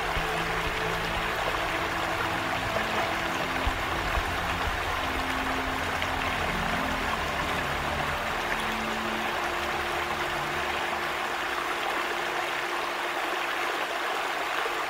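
Steady rush of a shallow, fast-flowing stream running down an eroded gully channel, with low sustained music notes underneath, heavier in the first half.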